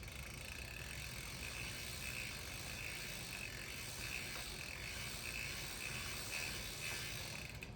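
Mountain bike drivetrain turned backward by hand: the freehub's pawls clicking steadily and the chain running through the derailleur as lube is worked into it. The clicking pulses a couple of times a second and stops near the end.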